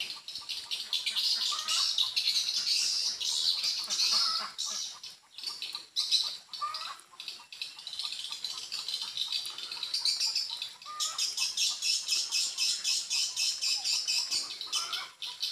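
Edible-nest swiftlet calls: high, rapid chattering twitters in runs, a lure sound played to draw swiftlets into a swiftlet house. The calls drop out briefly a few times, and the second half is one long fast, evenly pulsed run.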